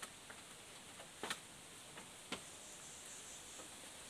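Bamboo poles knocking lightly against each other as they are handled and set in place: a handful of short hollow knocks, the loudest a quick pair about a second in. A steady high insect hiss runs underneath.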